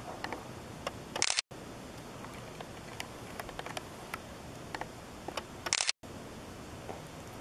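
Camcorder handling noise: faint scattered clicks and taps on the camera over a steady hiss. Two louder rustling bursts come about a second in and again near six seconds, each cut off abruptly by a brief dropout to total silence.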